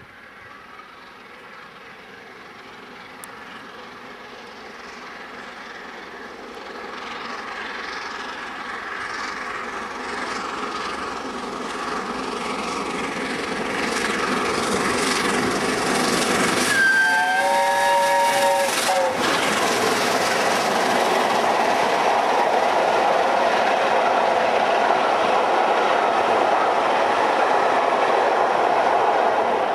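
Steam locomotive 60163 Tornado, an LNER Peppercorn A1 Pacific, approaching at speed and growing steadily louder. Its whistle sounds for about two seconds in the middle, several notes at once. Then its coaches rush past with a loud, steady rolling wheel noise.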